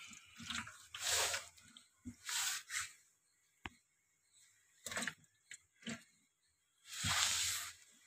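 Hands and phone handling against a refrigerator's plastic inner wall: short rubbing and squishing rustles, with a few light clicks and knocks in between.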